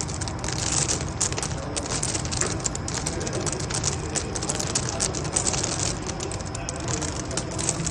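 Rotary-cylinder chocolate drops machine running, with a dense, irregular clicking over a steady low hum.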